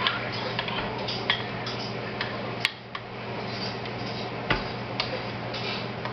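A spoon knocking and clinking against the crock pot while stirring a thick sauce: scattered light taps, with a sharper click a little before the middle and two more knocks a little after.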